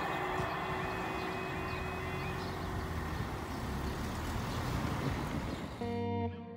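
Level crossing warning alarm sounding in a repeating pattern, stopping about two seconds in as the lights go out and the barriers rise, over a steady rumble of passing traffic and the departed train. Guitar music comes in near the end.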